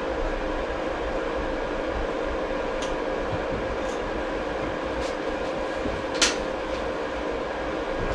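Steady machine hum with several faint steady tones under it. A few light clicks of hand tools on motorcycle parts sound over it, the sharpest about six seconds in.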